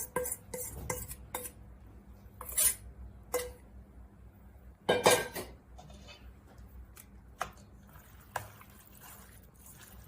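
Utensils clinking and scraping against a bowl while mixing seasoning and sesame paste into cold bean-jelly noodles (liangfen), with irregular clinks, the loudest about two and a half and five seconds in.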